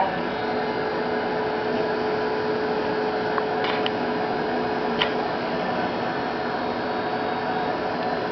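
Steady whir and hum of a running desktop computer's cooling fan, with a few faint clicks a little past the middle.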